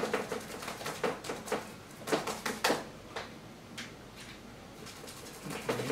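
Paintbrush working paint on a stretched canvas: a series of short, brushy strokes and taps, with a cluster of louder strokes about two seconds in.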